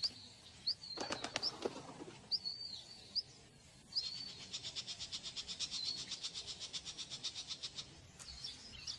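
Small birds calling with short, high, looping chirps, then a fast, even run of pulses at about eight a second for some four seconds.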